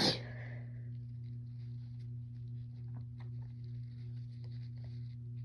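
The tail of a woman's sneeze right at the start, then a steady low hum with faint scattered clicks.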